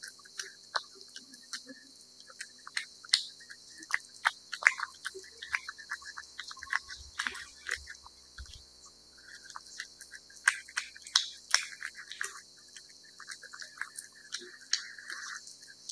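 Domestic cat eating wet cat food from a bowl: an irregular run of wet smacks, licks and chewing clicks, several a second.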